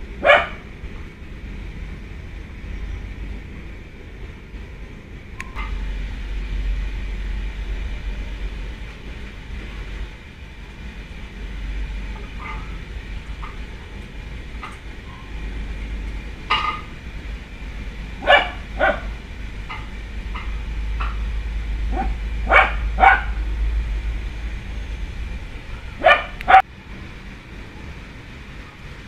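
A dog barking in short, separate barks, several of them in pairs, over a steady low rumble.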